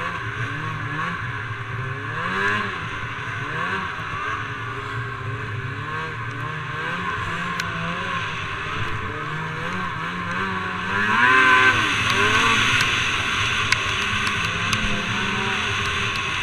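Snowmobile engine heard from on board while riding, its revs rising and falling with the throttle, with a sharp climb in revs about two-thirds of the way through. A steady rushing hiss runs under it.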